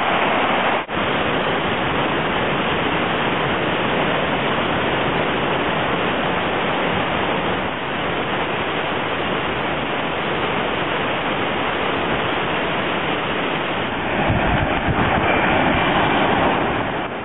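Waterfall roaring: a steady, even rushing of falling water, with a brief dip about a second in.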